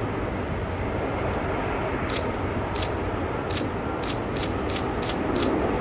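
Distant jet roar of a Boeing 747-8's four GEnx engines at take-off thrust as the jumbo rotates and lifts off, a steady rumble and hiss. A run of about eight short, sharp ticks comes in over it in the second half.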